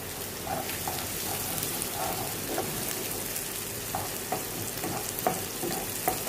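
Chopped onions and green chillies sizzling in hot oil in a kadhai, lightly browning, stirred with a wooden spatula that scrapes and knocks against the pan now and then.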